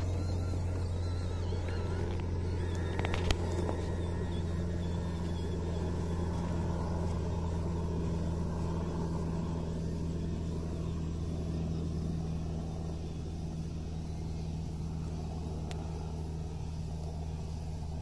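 1/12-scale MN99S RC crawler driving over sand and up a dirt trail, its electric motor and metal gear drive giving a steady low hum. There is one sharp knock about three seconds in, and the hum eases slightly in the second half as the truck moves away.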